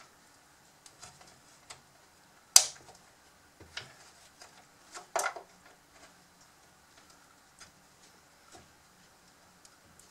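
Scattered clicks and small scrapes of a tool working at a clipped joint in the hard plastic housing of a Bruder CAT D11 toy bulldozer. There is one sharp click about two and a half seconds in and a louder cluster of scrapes and clicks around five seconds.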